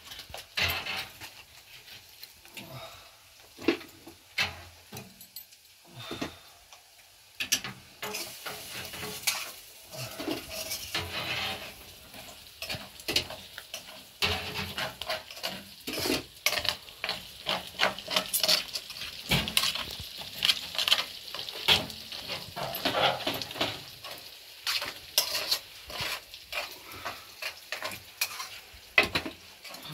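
Food sizzling in a frying pan while a metal utensil scrapes and stirs it, in repeated short strokes. The first several seconds hold only scattered metallic knocks and scrapes before the frying hiss sets in.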